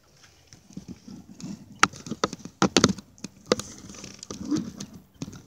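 Irregular knocks and clicks of a paddle and gear being handled in a kayak, with the sharpest cluster about two to three seconds in.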